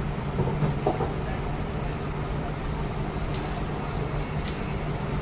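Restaurant room ambience: a steady low rumble with faint background voices, and a few light clicks about half a second to a second in.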